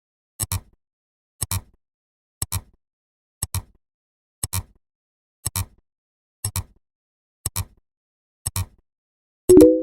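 Counting sound effect: a short double click repeating about once a second, with a louder, brief pitched tone near the end.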